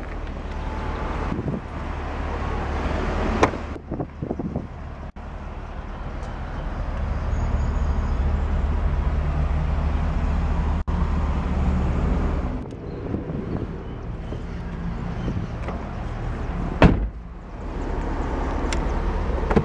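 Street traffic noise heard from an open-top car, a steady rumble that swells between about 6 and 12 seconds in, with a sharp click about 17 seconds in.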